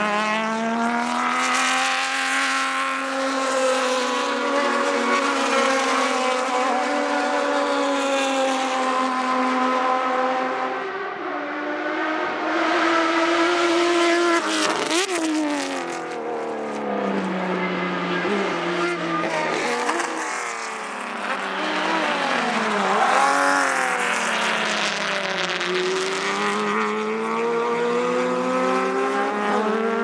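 Inline-six engines of TC Bonaerense race cars at racing speed, several cars going by one after another, their pitch climbing and dropping through gear changes. About halfway through, one car passes close and its pitch drops sharply as it goes by.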